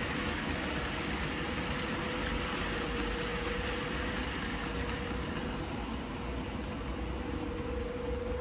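00 gauge model freight train with a long rake of bogie tank wagons running on the layout: a steady rumble with a held hum, easing slightly in the last few seconds as the train passes.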